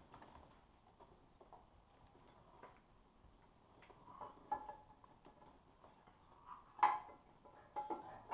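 Light, scattered metallic clinks and taps from a shorty exhaust header and its gasket being worked into place against the engine, with the sharpest clink about seven seconds in.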